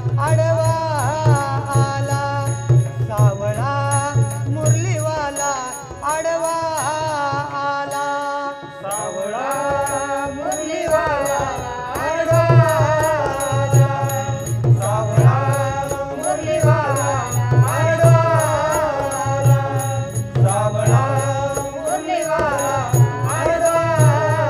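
Marathi devotional gaulan music: a voice singing long, bending phrases over harmonium, with pakhwaj drum beats and a regular high ticking that keeps time. The deep pakhwaj strokes drop out for several seconds in the first half, then come back.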